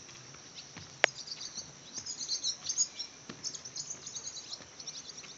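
A bird twittering in quick runs of high chirps over a steady high drone of insects, with one sharp click about a second in.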